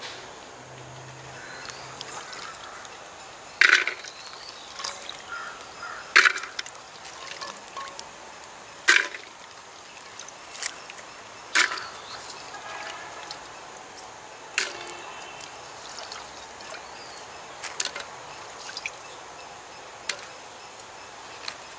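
Wet jackfruit seeds dropped by the handful into a clay pot, a sharp clack every two to three seconds with smaller clicks between, and water trickling off the seeds.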